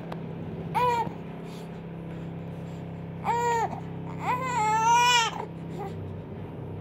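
Baby crying out in short high-pitched cries: a brief one about a second in, another about three seconds in, then a longer one a second later.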